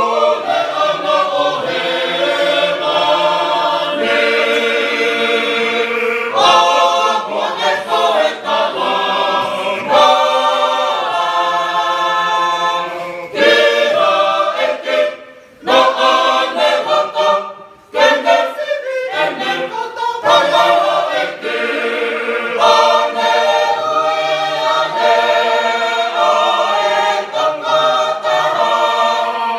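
Large mixed choir of men and women singing unaccompanied in parts, with short breaks between phrases.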